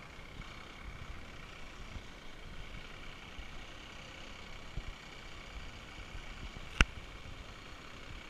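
Army box truck's diesel engine running at low speed as the truck manoeuvres slowly, heard faintly with a low rumble. A single sharp click about two-thirds of the way through.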